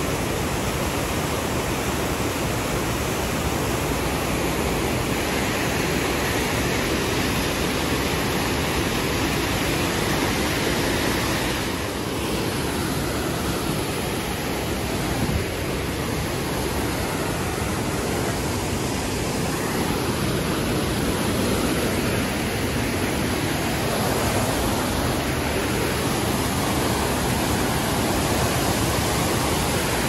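Waterfall cascading over rocks and boulders: a steady, unbroken rush of falling water.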